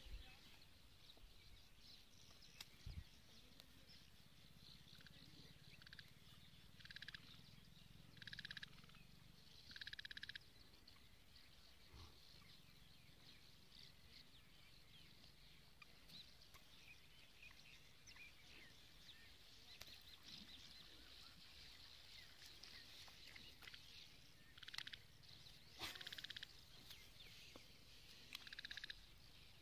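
Faint animal calls: short buzzy trills, three in a row about a third of the way in and three more near the end, over a steady high chorus.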